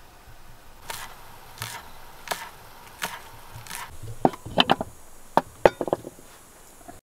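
Freshly cooked rice being stirred and scooped in a metal pot with a rice paddle: about five evenly spaced scraping strokes, then a quick run of sharp clicks and knocks.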